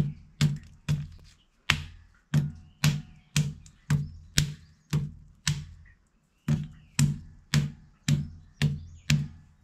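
Hand-held stone knocking on jackfruit seeds against a hard floor, cracking their shells: a steady run of sharp knocks about two a second, with a short pause a little past the middle.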